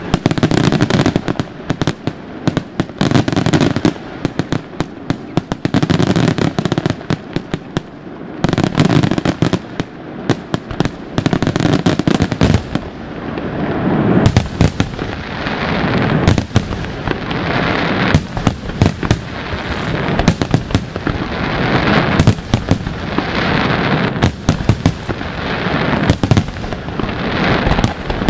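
Aerial fireworks shells bursting overhead in rapid, overlapping bangs. From about halfway through, a dense crackling hiss builds under the bangs as crackling-star effects fill the sky.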